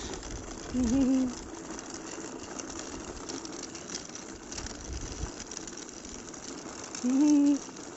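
Plastic baby walker rolling over asphalt as it is pushed, its wheels giving a steady rattle. A child makes a short vocal sound about a second in and another, held a little longer, near the end.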